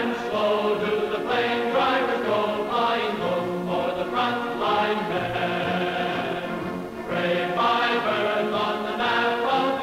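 Soundtrack music: an orchestra with a choir singing held chords, dipping and swelling into a new chord about seven seconds in.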